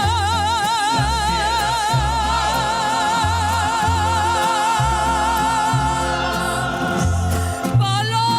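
Ranchera song: a singer holds one long high note with wide, even vibrato for about six seconds over a band with a stepping bass line, then moves to a new note near the end.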